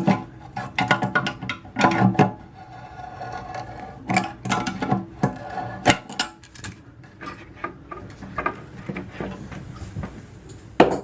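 Channel-lock pliers working the tight fill-valve nut under a toilet tank: irregular clicks, scrapes and knocks as the jaws grip and turn the nut.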